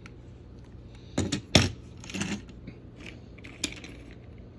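Plastic toy train pieces being handled and set down on a hard surface: a few sharp clicks and knocks, the loudest about one and a half seconds in, then a short rattle and one more click.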